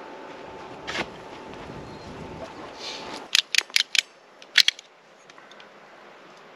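A hand tool working on 3/4-inch PVC pipe: four quick sharp clicks in a row, then two more a moment later. Before them, steady outdoor noise with a single knock.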